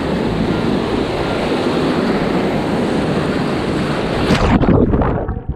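Whitewater rapids rushing and crashing against a paddleboard, a dense steady roar with wind on the microphone. Near the end the roar gives way to muffled, irregular splashing.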